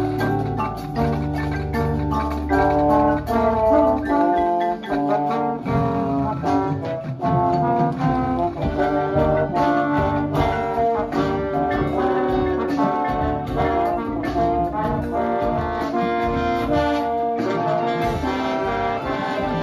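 High school marching band playing: brass holding chords over long low bass notes, then percussion joins with a steady beat about five seconds in, with mallet percussion from the front ensemble.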